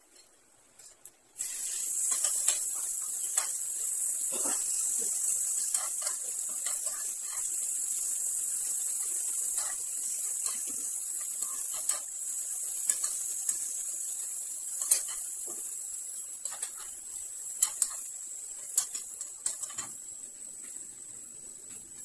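Diced seasoned chicken frying in hot oil with garlic and onion in a nonstick pan: a loud sizzle starts suddenly about a second in and slowly dies down, with spatula clicks and scrapes against the pan throughout.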